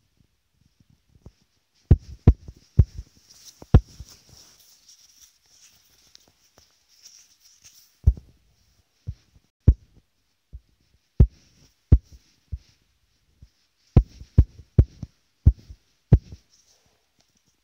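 Fingertips tapping and pressing on a phone's touchscreen, picked up by the phone's own microphone as dull thumps, about fifteen in irregular clusters.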